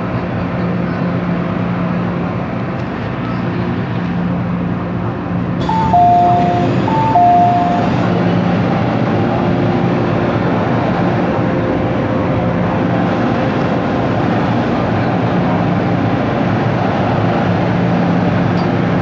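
Cabin noise of an MTR M-Train electric multiple unit as it comes to a stop, a steady running hum. About six seconds in, a two-tone door chime (high then low, played twice) sounds as the doors open, and the cabin and platform ambience continues.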